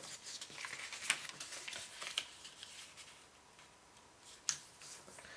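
A square of origami paper rustling and crinkling as it is folded and creased by hand, with light scrapes and ticks of fingers on the paper. One sharp tick comes about four and a half seconds in.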